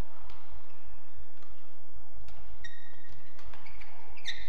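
Badminton rally: rackets strike the shuttlecock in sharp pops about once a second, and rubber-soled court shoes squeak on the court floor in the second half.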